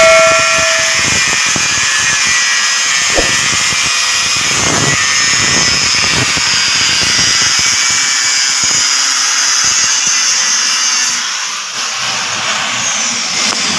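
Angle grinder with a thin cutting disc cutting into a metal alternator bracket held in a vise, a loud, steady, high grinding hiss. About eleven seconds in the cutting stops and the grinder winds down.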